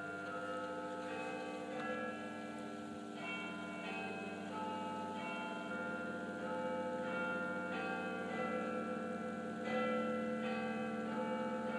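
Church bells ringing changes: a steady run of ringing notes, a new bell about every half second, over a steady low hum.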